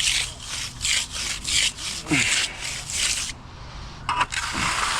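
Rhythmic scraping strokes on wet concrete, about two to three a second, stopping about three seconds in. A steadier rushing scrape follows near the end; it goes with cleaning excess concrete away.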